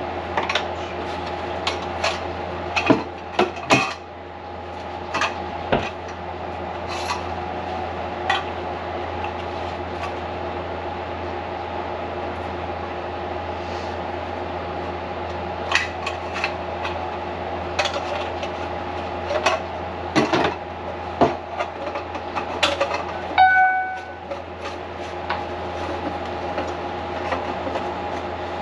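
A motor hums steadily while metal clanks and rattles come at irregular intervals. About two-thirds of the way in, the hum briefly drops away with a short tone, then resumes.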